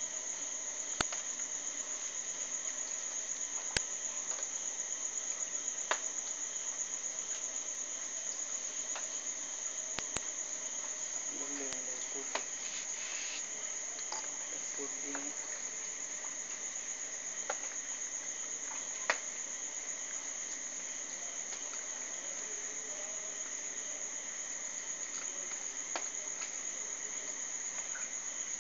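Crickets trilling in a steady, continuous high-pitched chorus, with a few soft clicks scattered through it.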